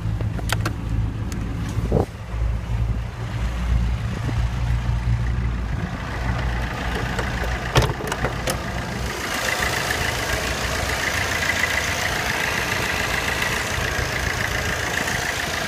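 Fiat Albea 1.3 Multijet four-cylinder turbodiesel idling with the clutch pedal released, carrying a rushing, rattling whirr ("şarıltı") that the owner blames on the clutch pressure plate and disc fitted six months earlier. About nine seconds in, the low engine drone fades and the higher rushing whirr comes to the fore. There are a few short knocks near the start and around eight seconds.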